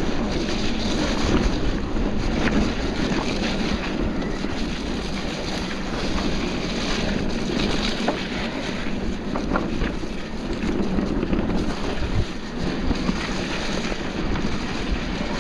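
Wind rushing and buffeting over the microphone of a camera carried on a moving mountain bike, a steady loud rush with a few light knocks.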